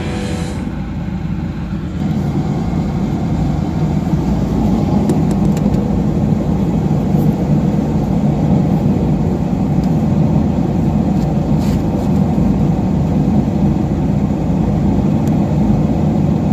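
A car running, heard as a steady low rumble with no distinct engine tone.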